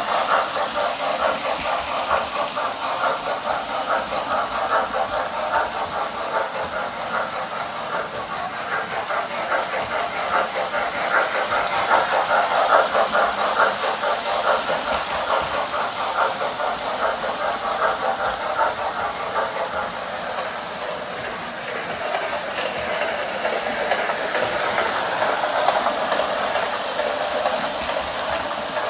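Toy train running round a loop of track: a fast, steady clatter of small wheels and motor that swells and fades as it comes near and moves away.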